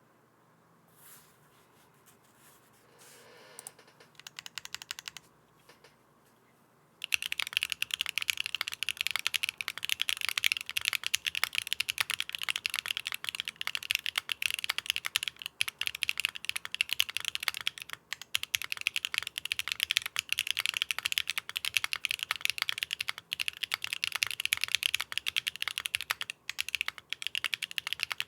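Fast, continuous typing on a Neo65 mechanical keyboard with Akko × HMX Stellar Rose linear switches, a carbon-fiber plate, no foam and GMK keycaps, giving a deep clack. After a few scattered keystrokes, the rapid typing starts about seven seconds in.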